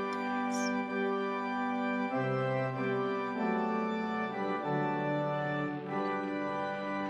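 Intro music of slow, held organ chords, changing every second or so.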